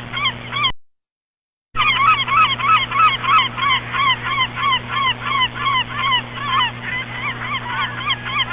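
A flock of birds calling together: many short, overlapping calls that each rise and fall in pitch, several a second. The sound cuts out for under a second about a second in, then resumes.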